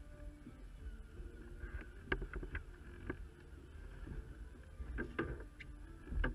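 Crew moving about the cockpit of a small moored sailboat while hauling in a line: a few short knocks and rubbing sounds against the boat's fittings about two to three seconds in and again around five seconds, with the loudest knock near the end, over a low steady background of wind and water.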